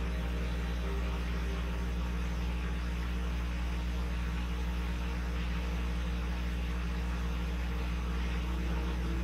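A steady low hum with an even hiss and a few faint held tones, unchanging throughout.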